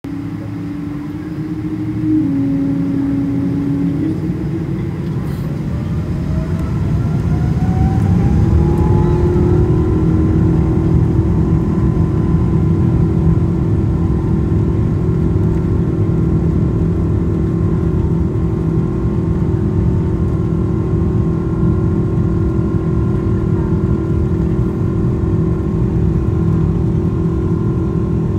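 Boeing 777-200's Pratt & Whitney PW4000-series turbofans spooling up for takeoff, heard from the cabin over the wing: a rising whine from about five to nine seconds in, then a steady, louder engine roar with a constant whine on top as the takeoff roll goes on.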